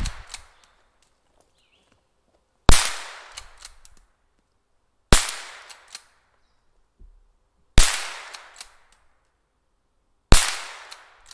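A .22 caliber gun fired four times at a slow, even pace, about two and a half seconds apart. Each sharp crack trails off in a short echo.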